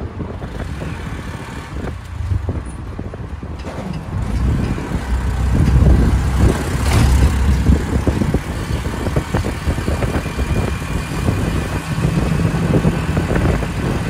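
The small motorcycle engine of a mototaxi running as it rides along a street. It grows louder for a couple of seconds around the middle.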